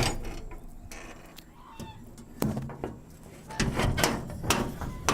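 A series of sharp knocks and rattles, loudest in a cluster about three and a half to four and a half seconds in, with short clucking calls from chickens between them.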